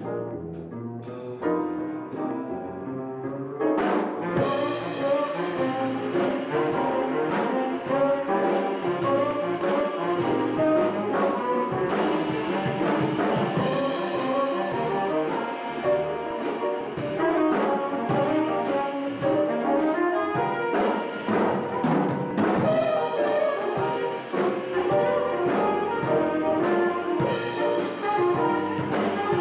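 Live jazz quintet playing a blues: tenor saxophone and flugelhorn playing together over piano, upright bass and drums with cymbals. The music is softer at first and swells to the full band about four seconds in.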